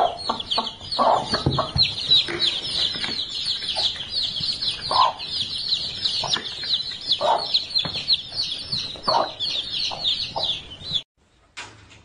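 A brood of baby chicks peeping without pause in rapid, short falling chirps, with the mother hen clucking now and then. It cuts off abruptly about eleven seconds in.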